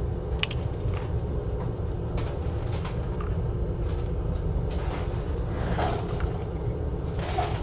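Steady low hum of running bench equipment, with scattered faint light clicks and scrapes of small tools during soldering work.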